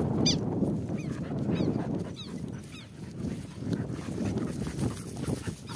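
Southern lapwing (tetéu) calling, a series of short high cries mostly in the first half, over wind rumbling on the microphone.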